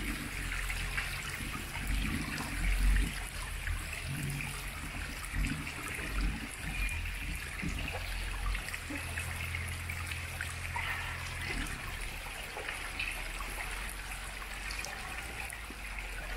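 Water trickling down a wet rocky trail, under the low, steady rumble of a Jeep's engine as it crawls slowly over the rocks.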